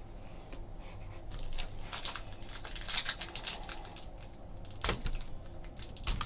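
Trading cards and foil pack wrappers being handled: crinkling and rustling, loudest in the middle, with a sharp snap about five seconds in.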